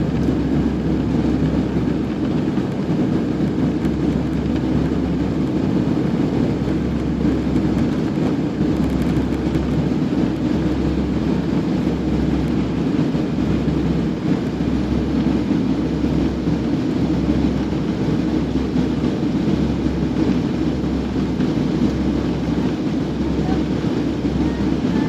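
Steady, unchanging roar of an Airbus A318 jet airliner's engines.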